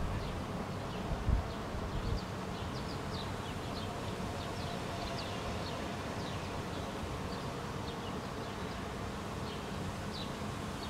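Outdoor ambience as a thunderstorm approaches: a steady hiss with a low rumble underneath. It is dotted with short, high, slightly falling chirps a few times a second. Two low bumps of wind on the microphone come about a second and two seconds in.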